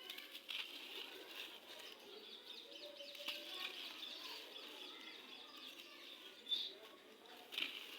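Gritty red sand crumbling, with a dense run of fine, crisp crackles and two louder crunches, one about six and a half seconds in and one near the end.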